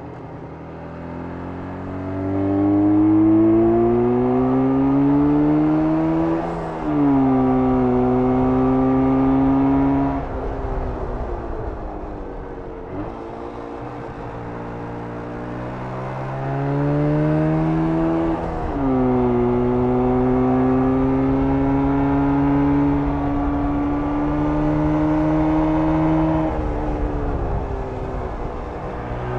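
1994 Jawa 350 (type 638) air-cooled two-stroke twin motorcycle engine under way: it climbs in pitch, shifts up and holds, then backs off the throttle. It pulls up through the revs again, shifts up once more and holds a steady speed, eases off, and opens up again right at the end.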